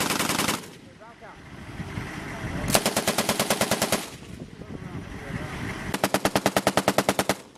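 Belt-fed machine gun firing three bursts of rapid, evenly spaced shots: a short burst ending just after the start, a longer burst about three seconds in, and another about six seconds in.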